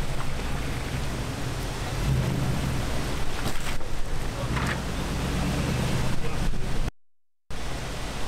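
Nissan Y62 Patrol's petrol V8 working under load as the four-wheel drive climbs a rock ledge, its rumble rising about two seconds in and again from about five seconds, with wind buffeting the microphone. The sound drops out for a moment about seven seconds in.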